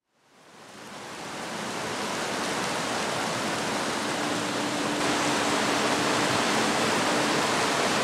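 Steady rain falling, a dense even hiss that fades in over the first two seconds.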